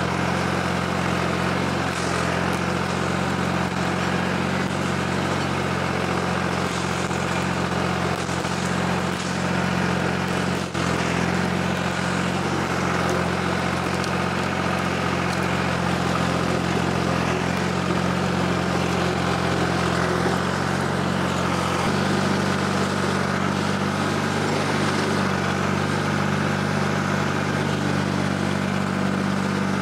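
Antique farm tractor engine running steadily under work; its note shifts slightly about two-thirds of the way through.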